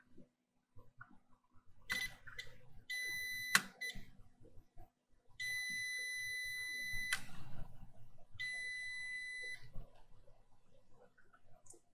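Digital multimeter's continuity beeper sounding a steady high beep as the probes touch low-resistance points on a laptop motherboard's power rails: a brief blip, then three beeps lasting a second or two each, with a probe click about three and a half seconds in. The beep marks a low resistance to ground, about 12 ohms on the meter, which the technician judges normal, with no short on these lines.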